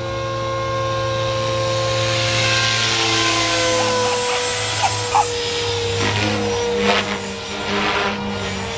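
Radio-controlled model helicopter in flight: a steady motor whine with rotor noise, its pitch wavering slightly as it manoeuvres, and a rushing sound that swells a few seconds in.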